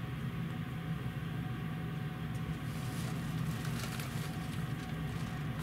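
Steady low hum inside a Keihan limited express car standing at a station, from its onboard equipment, with a few faint clicks and rustles about halfway through.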